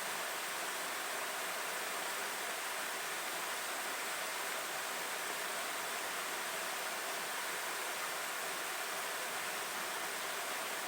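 Steady, even rush of flowing water, unbroken throughout.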